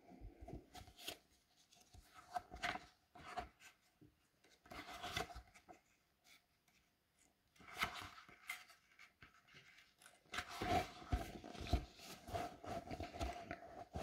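Pages of a picture book being handled and flipped: soft paper rustles and rubs in scattered short bursts, busiest over the last few seconds.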